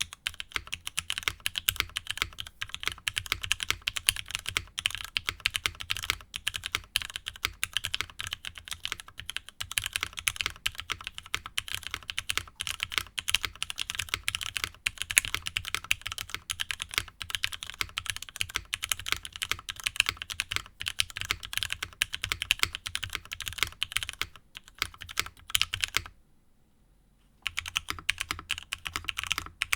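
Steady fast typing on a mechanical keyboard: Cherry MX Black Hyperglide linear switches on a nylon full plate, top mount, with GMK Cherry-profile keycaps. Near the end the typing stops for about a second, then resumes on GMK MTNU-profile keycaps.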